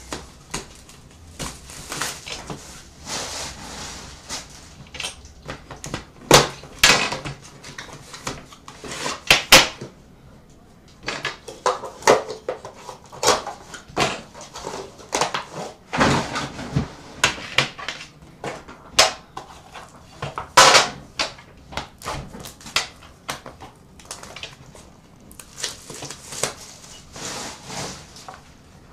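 A metal Upper Deck The Cup hockey card tin being handled and opened: irregular knocks, clinks and scrapes of the tin and its lid against a glass counter, in short scattered bursts with brief quiet gaps.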